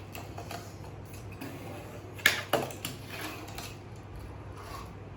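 Light clicks and clatter of a small toy car being handled and run, with two sharp knocks about two and a half seconds in.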